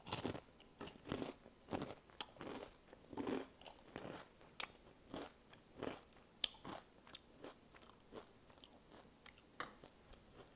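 Flamin' Hot Cheetos being bitten and chewed close to the microphone: crisp crunches that come thick at first and thin out toward the end.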